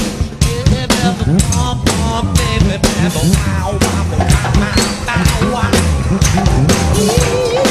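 Live band playing an instrumental passage of a rock song: a drum kit keeps a steady beat under acoustic guitar and other melodic instruments.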